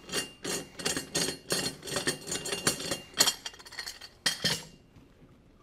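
Metal clinking and rattling as the aluminum clamp bars of a conveyor-belt splicing tool are loosened and lifted off, a few clinks a second, with two louder clanks near the end before it goes quiet.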